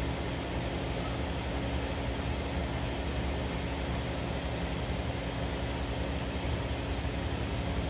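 A steady machine hum with a constant low drone and a held tone above it, unchanging throughout.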